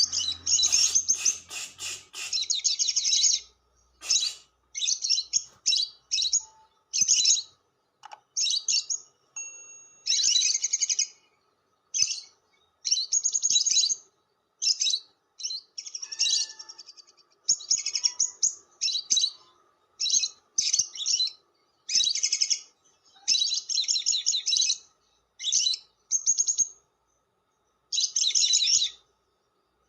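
Lovebird giving harsh, high-pitched chattering calls in a long run of bursts. The bursts are a fraction of a second to about a second long, come about once a second, and have short gaps between them.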